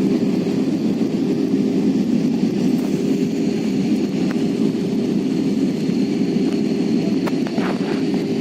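Steady drone of a jet airliner's cabin in flight: engine and airflow rush with a constant hum running through it. A few faint clicks come near the end.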